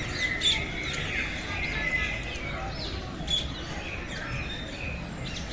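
Many caged birds chirping and calling together, with a couple of sharper, louder calls standing out, over a steady low background rumble.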